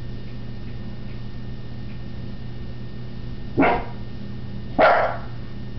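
A dog barks twice, two short, loud barks a little over a second apart.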